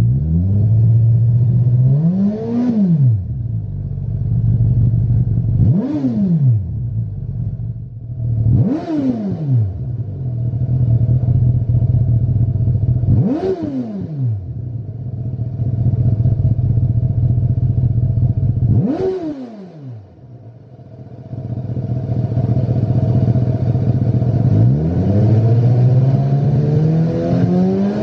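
Suzuki GSX-S1000's inline-four engine idling steadily through its exhaust, with five quick throttle blips that rise and fall sharply. Near the end comes a longer, slower rev. Part is heard through the stock silencer and part through a Lextek OP1 aftermarket silencer.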